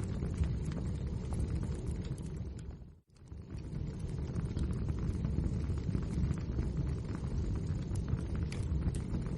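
Crackling wood fire: a steady low rumble of flames with frequent small pops and snaps. About three seconds in the sound dips away for a moment and returns.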